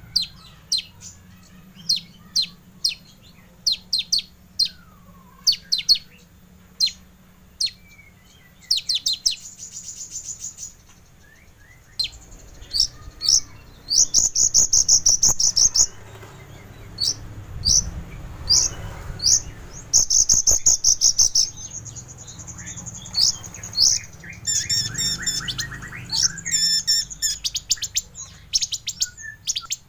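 Kolibri ninja sunbird singing: quick series of sharp, high chirps broken by longer, rapid buzzy trills.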